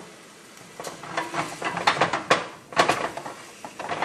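Kitchen clatter: a run of irregular sharp knocks and rattles from things being handled at the counter, starting about a second in and loudest around the middle.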